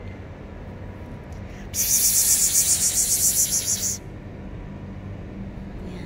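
Dry cat kibble shaken out of a bag onto concrete: a loud, fast rattling hiss that starts about two seconds in and stops abruptly two seconds later, over a steady low hum.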